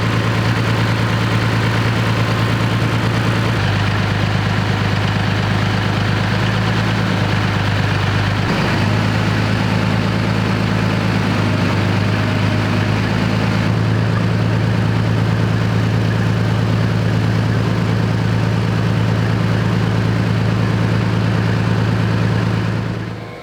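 BMP-1's UTD-20 V6 diesel engine idling steadily, a loud, even low drone that cuts off near the end.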